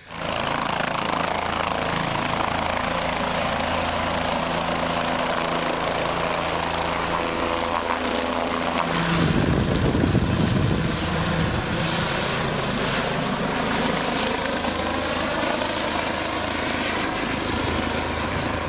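Helicopter flying overhead, its rotor and turbine noise steady, then growing loudest about halfway through before easing slightly, with its pitch sliding a little afterwards.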